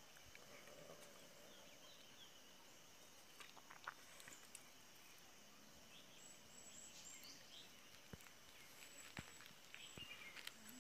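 Near silence: faint outdoor ambience with scattered faint bird chirps, mostly in the second half, and a few soft clicks.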